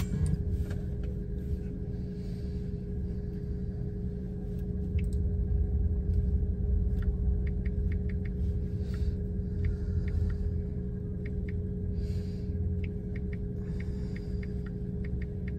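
Low, steady rumble and hum of a car idling, heard inside the cabin, with scattered faint light ticks.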